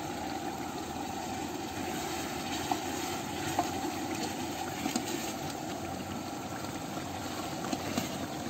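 Steady roar of a gas burner under a large aluminium cooking pot, with a few faint clicks of the spoon and paddle.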